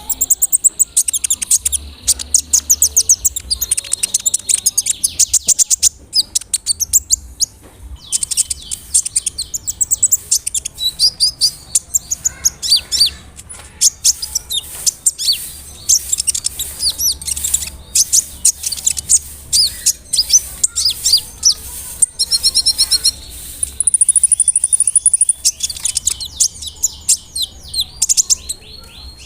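Kolibri ninja sunbird singing continuously in full song: rapid, high, sharp chirps and trills delivered in long phrases with short pauses.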